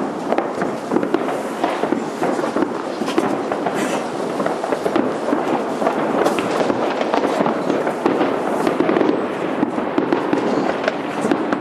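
Fireworks display going off without a break: a dense, continuous crackle of many overlapping pops and bangs.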